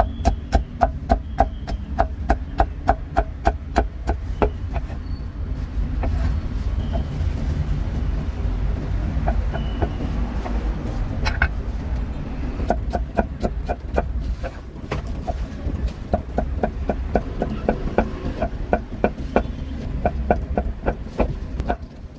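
A cleaver chopping roast meat on a chopping block in quick, regular strokes, about three a second, in two long runs with a pause in between. A steady low rumble of traffic runs underneath.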